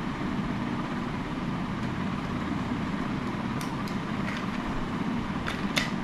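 Steady background noise of a room or street, with a few faint light clicks in the second half.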